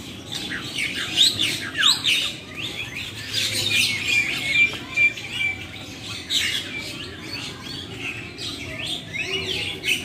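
Many birds chirping and calling over one another in quick, high chirps, with a short run of clear whistled notes about four seconds in.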